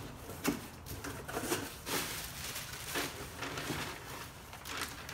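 Cardboard box flaps being pulled open and plastic-bagged parts rustling as they are handled inside the box: a string of short, irregular scrapes and crinkles.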